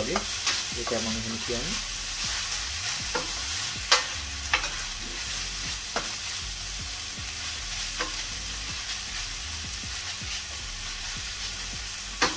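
Finely chopped onions sizzling steadily in oil in a stainless steel frying pan as they are stirred with a spatula. The spatula knocks and scrapes against the pan every second or two.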